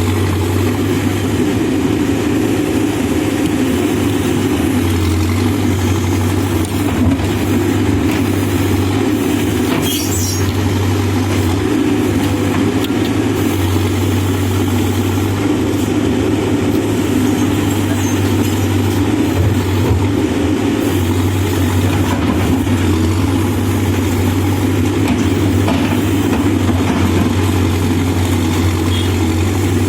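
Backhoe loader's diesel engine running steadily, a constant low hum with no clear revving.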